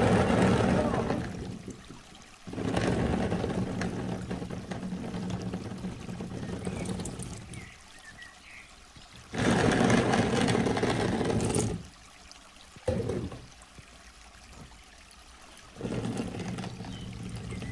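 Blue water-gel beads poured from a bowl into a plastic bin, a rushing patter that comes in several pours, loudest at the start and again from about ten to twelve seconds in.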